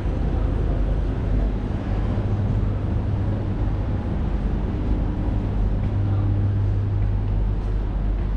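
Steady low rumble of road traffic crossing the bridge deck overhead, with a low hum that swells for a couple of seconds about five seconds in.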